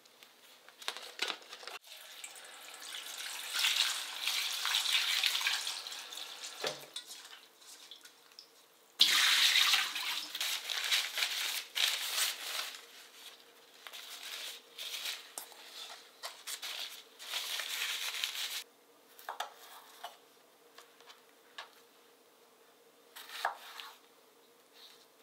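Strawberries being rinsed and handled in a stainless steel bowl, with water running and splashing, then a stretch of uneven rustling and hiss as they are patted dry with a paper towel. A few sharp knife clicks on a plastic cutting board near the end.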